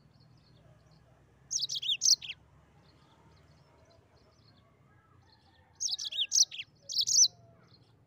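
Yellow-fronted canary singing: two short bursts of quick, high, down-slurred twittering notes, one about a second and a half in and another from about six seconds to seven.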